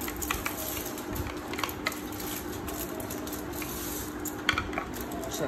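Plastic tint brush stirring and scraping a creamy hair colour and developer mix around a plastic tint bowl, in light irregular clicks and scrapes over a faint steady hum, with a few sharper clicks about four and a half seconds in.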